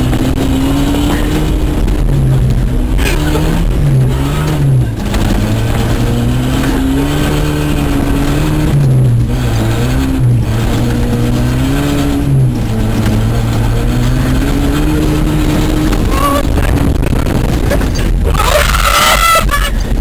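Toyota pickup truck's engine revving up and down as it is driven hard across a grass field, heard from the open bed over a steady low rumble of wind and tyres. Near the end the engine note drops away under a rush of noise.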